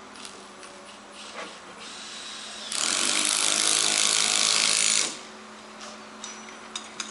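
Power drill boring an anchor-point hole into a floor panel, in one burst of about two and a half seconds near the middle.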